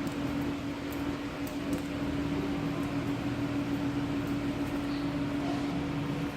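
Steady hum of an electric fan running, a constant drone with a whirring hiss, with faint small clicks scattered through it.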